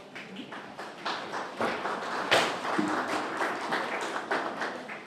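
Audience applauding: a dense patter of hand claps that starts about a second in and dies down near the end.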